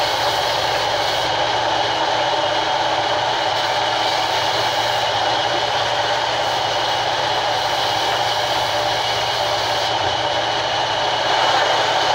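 Sawmill band saw running steadily while ripping a long wooden plank lengthwise, a continuous loud mechanical noise that gets a little louder near the end.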